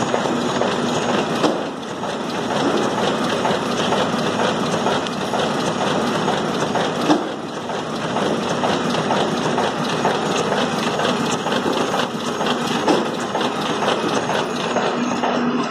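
W+D 134 envelope window patching machine running: a steady, rapid mechanical clatter of many close-spaced clicks.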